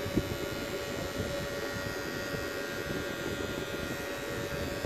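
Wahl cordless hair clipper buzzing steadily as its blade is worked against the hair at the back of the head, blending out the line of a fade.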